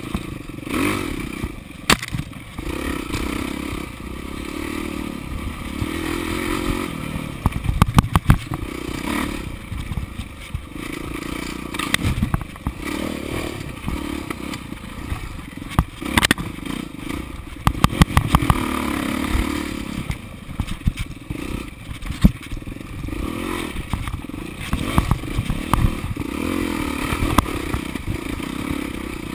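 Off-road dirt bike engine revving up and down as it is ridden hard over a rough trail, with frequent sharp knocks and clatter as the bike hits bumps and ruts.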